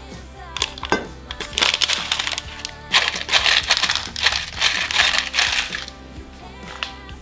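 Dry, hard food pieces poured from a plastic bag into a stainless steel bowl, rattling and clinking against the metal in two spells, the longer from about three seconds in to near six, over steady background music.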